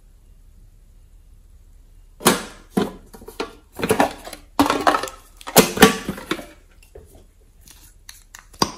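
Pink printed metal tin box being handled: a run of knocks and rattles over about four seconds, then a few small clicks near the end.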